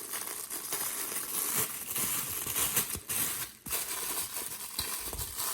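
Thin plastic liner bag being pulled out of a Litter Genie refill cartridge: continuous crinkling and rustling of plastic film with small irregular crackles.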